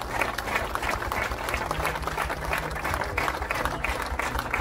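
Crowd applauding, with one pair of hands clapping close by.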